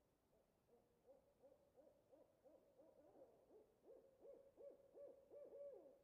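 Owl call: a run of short hoots, about three a second at first, coming faster and louder toward the end. Faint throughout.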